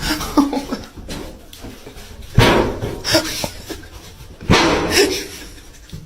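A dog giving several short, loud calls, a second or two apart.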